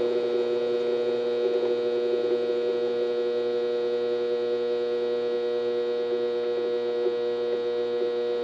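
7x12 mini lathe's motor and spindle running with a steady electric whine made of several tones, as the speed knob turns it down from about 600 to under 200 rpm.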